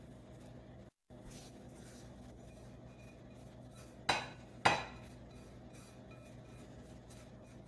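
Two sharp clinks of a utensil against a bowl, about half a second apart, over a low steady kitchen hum, while a marinade is being mixed. The sound drops out briefly about a second in.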